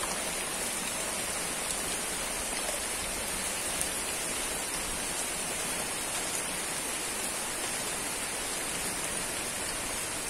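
Steady rain falling, an even hiss that holds constant throughout.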